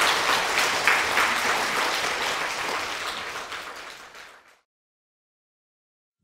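Applause, a dense patter of many hands clapping, fading away over about four seconds and ending in dead silence.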